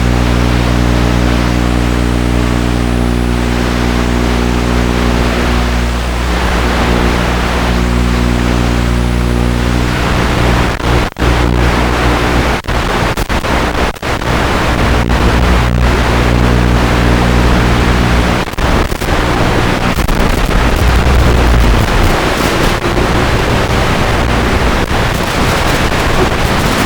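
Multirotor FPV drone's electric motors and propellers buzzing at a steady pitch with rushing air noise, heard from on board. Partway through, the sound cuts out briefly several times and turns rougher and noisier.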